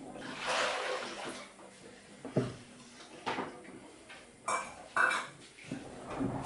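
Dishes and cutlery clinking and clattering as they are handled, with several separate sharp clinks, a couple ringing briefly. A short rush of hiss comes in the first second or so.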